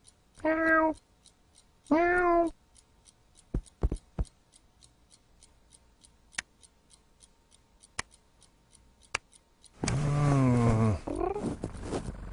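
Domestic cat meowing twice in quick succession, each meow rising and then falling in pitch, followed by a few scattered clicks. Near the end comes a loud, longer cry that falls in pitch.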